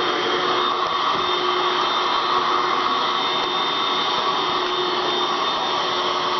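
Vacuum cleaner running with a steady whine.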